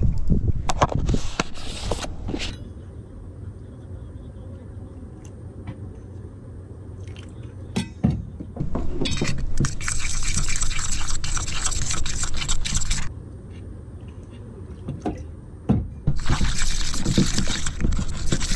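Water poured and sloshed into a bowl of flour-and-cornstarch batter, in three separate bursts of a few seconds each.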